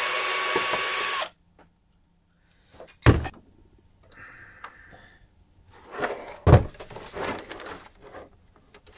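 Cordless drill-driver whirring steadily for just over a second as it backs out a screw of a monitor stand, then stopping. The plastic monitor is then handled, with two sharp thumps a few seconds apart and faint rustling between.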